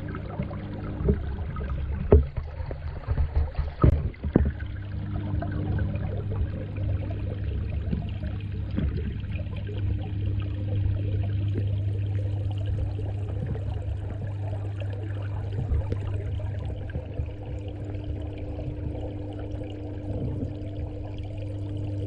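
Water pouring and trickling, over a steady low hum, with a few knocks and bumps about two to four seconds in.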